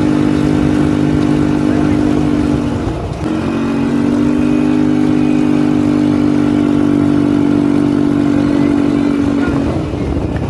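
Small engine running at a steady high speed while towing a loaded trailer, easing off briefly about three seconds in, then holding steady again until it drops near the end.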